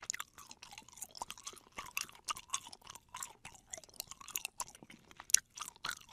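Young kitten suckling milk from a small feeding bottle: faint, wet sucking and smacking clicks, several a second at an uneven pace.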